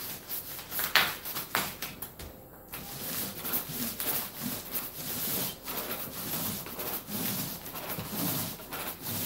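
Paint roller on an extension pole rolling screen paint over a flat projection screen in repeated back-and-forth strokes, a first light coat going onto the screen's slick surface.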